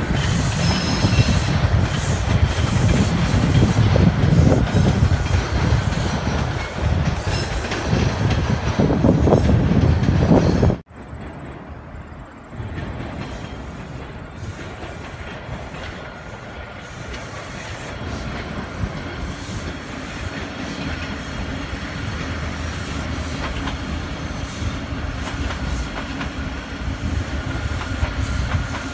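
TTC subway train running past on open-air track, a loud steady rail noise. About eleven seconds in it cuts off abruptly. A quieter train noise then builds slowly as another subway train comes by.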